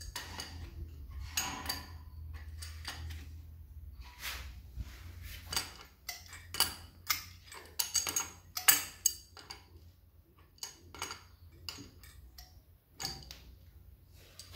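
Irregular metallic clicks and clinks of a steel spanner against a chrome angle stop valve and its fitting as the connection is tightened, some taps ringing briefly. The loudest clinks come a little past the middle.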